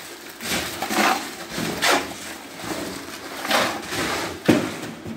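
Shovels scraping through wet concrete and buckets of concrete being handled and emptied: a run of irregular scrapes and knocks, about one a second, with a sharp knock about four and a half seconds in.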